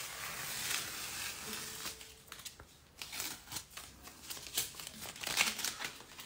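Paper rustling and scratching under a hand working over a painting, in irregular strokes with small clicks.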